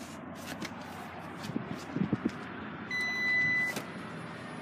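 Soft knocks and clicks, then a single electronic beep lasting under a second about three seconds in, followed by a sharp click.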